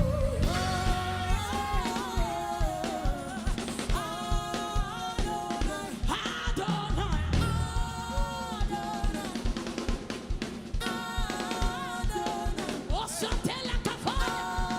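Live gospel worship band music: a drum kit keeps a quick, steady beat under held melodic lines that move step by step.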